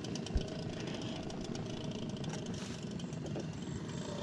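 A peque-peque, the small longtail motor of a river boat, running steadily with a fast, even chugging beat. A single low thump about half a second in.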